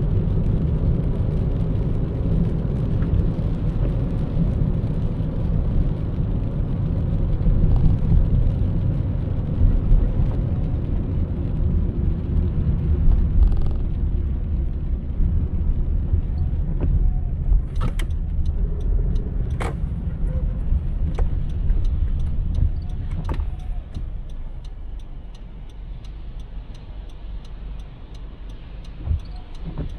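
Car driving through city traffic: a steady low rumble of road and engine noise that drops off about two-thirds of the way through as the car slows. Faint, evenly spaced ticking starts a little past halfway.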